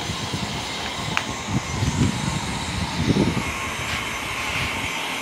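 A steady machine-like drone with a brighter hiss that picks up about three seconds in, and a few low bumps in the first half.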